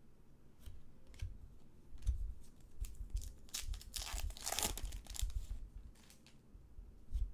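Trading-card packaging being torn open and crinkled by hand: a run of short rips and crackles, the loudest stretch about halfway through, with soft handling bumps.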